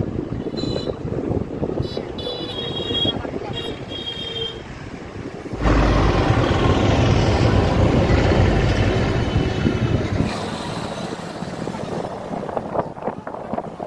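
Road and wind noise heard from inside a moving car, much louder for about five seconds in the middle, with a few short high-pitched beeps in the first few seconds.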